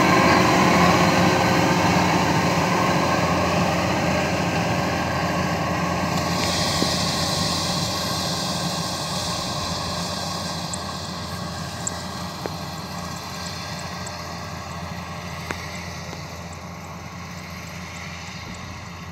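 Kubota DC-93 rice combine harvester's diesel engine and threshing machinery running steadily as it cuts standing rice, fading as it drives away.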